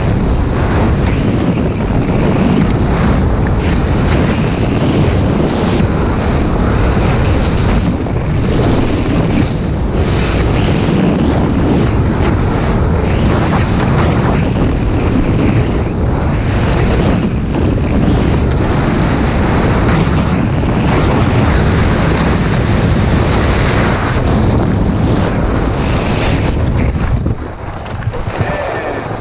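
Wind rushing over a downhill skier's action-camera microphone during a fast slalom run, mixed with skis scraping and carving on hard-packed snow. The noise drops off near the end as the skier slows.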